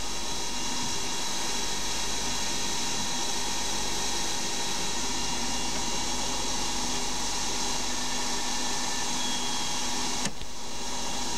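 Hercus PC200 benchtop CNC lathe running: a steady spindle whine and hum with several fixed tones while a carbide insert takes a light finish pass on a 2011 aluminium part, then the spindle spins on with the tool clear. A single click about ten seconds in.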